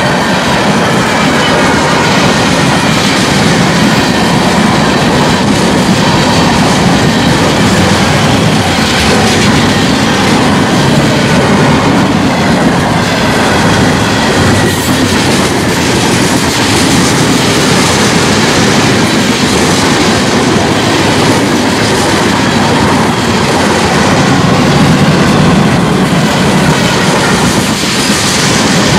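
Union Pacific manifest freight train's cars rolling past close by, a steady loud noise of steel wheels running on the rails that does not let up.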